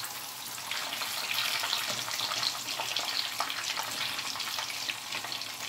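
Breadcrumb-coated tilapia fillets frying in a skillet of hot oil: a dense, steady sizzle and crackle that grows louder about a second in.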